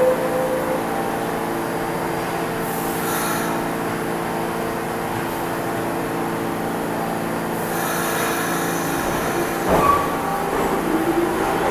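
R46 subway car standing at the platform, its equipment humming steadily, with air hissing twice. Near the end there is a knock and a rising whine as the traction motors start the train pulling out.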